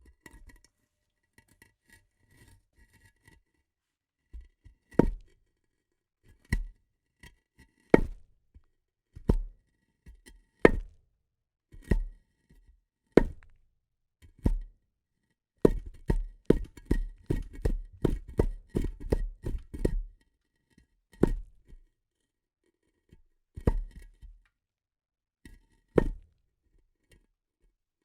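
Heavy footsteps on concrete, recorded as foley. After a few faint ticks, single heavy steps come about every second and a half, then quicken to about three a second for several seconds in the middle, then slow to single steps again near the end.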